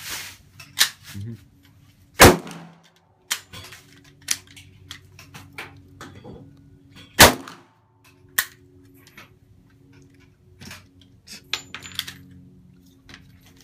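Two single shots from a custom AK-pattern rifle chambered in .45 ACP, about two seconds in and about five seconds later, each with a short ringing tail. Quieter sharp clicks and cracks fall in between.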